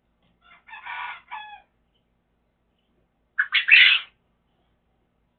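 Chicken calling twice in short pitched squawks, the second call louder.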